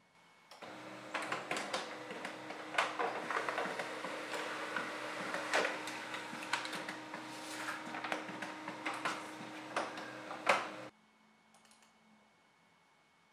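Canon MF113w monochrome laser printer printing a page: its mechanism starts about half a second in and runs steadily with a hum and many clicks and clatters as the sheet feeds through. It stops abruptly about eleven seconds in, and a few faint clicks follow.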